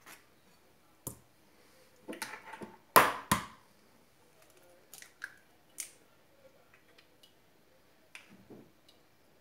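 Eggs being cracked and separated into a glass bowl: scattered light clicks and taps, the loudest a pair of sharp knocks close together about three seconds in.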